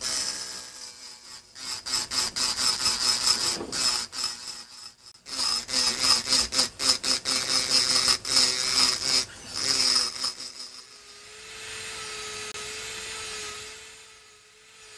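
Rotary engraving drill with a burr grinding into an optical crystal glass block: a rapid run of short scratchy strokes as the bit is touched to the glass again and again. After about ten seconds the grinding stops and only a steady motor hum goes on.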